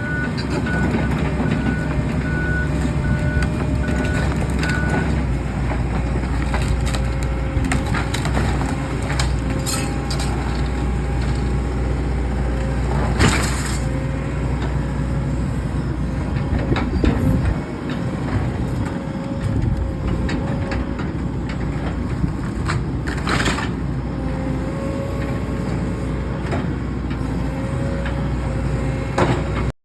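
Heavy demolition machine running steadily while tearing down a wooden building, with wood crushing and cracking and two loud crashes about 13 and 23 seconds in. A run of short, even beeps sounds for the first five seconds.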